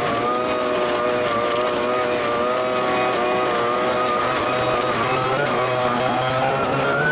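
Echo ES-250 Shred 'N Vac's small two-stroke engine running steadily at high throttle in vacuum mode, its pitch wavering slightly as it sucks leaves from the pile through a collection hose into a garbage can. A rushing noise of air and leaves sits over the engine's tone.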